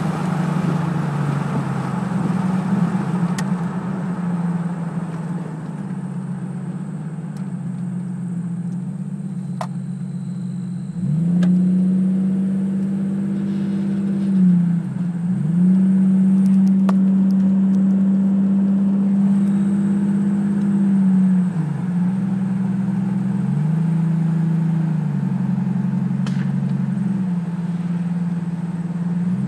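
Car engine and road drone heard from inside the cabin while driving on a highway: a steady low hum whose pitch dips and climbs back up several times, with a few faint clicks.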